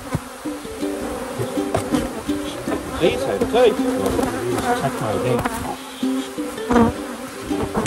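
Honeybees buzzing as they fly close around an open hive, each bee's hum rising and falling in pitch as it passes, with several overlapping at once.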